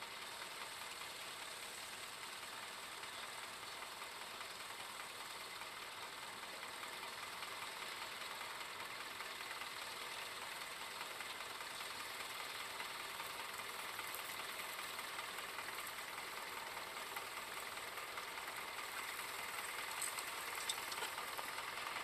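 Vintage tractor engine running steadily as it pulls a plough, growing gradually louder as it comes closer.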